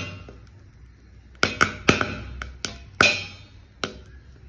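Dried maize kernels popping in hot salt under a steel lid: a clank right at the start, then about half a dozen sharp, irregular pops from about a second and a half in, each with a brief metallic ring off the lid.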